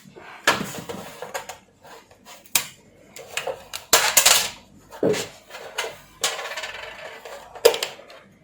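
Irregular clicks, clinks and knocks of hard objects being handled on a workbench, about half a dozen sharp strikes with rustling between them.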